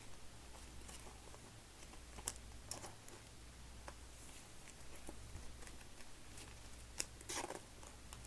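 Faint handling of trading cards: scattered soft clicks and flicks of card on card, with a sharper click about two seconds in and another near seven seconds followed by a short rustle. A low steady hum runs underneath.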